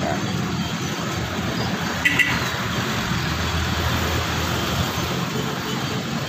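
A steady low engine hum, with a short metallic clink about two seconds in.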